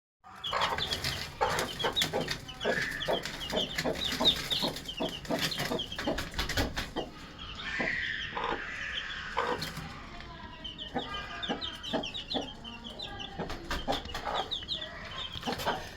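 A flock of kept birds calling together: many rapid, short high chirps overlapping with lower clucking calls.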